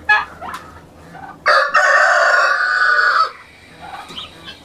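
A rooster crows once, about a second and a half in, one long loud call of nearly two seconds. It is preceded by the last note of a turkey's gobble and followed by soft clucking.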